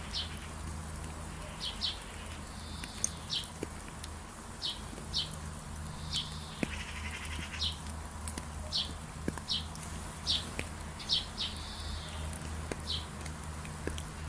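A songbird repeatedly giving short, sharp high chirps, about one or two a second, with a brief buzzy call about halfway through, over a steady low background hiss and hum.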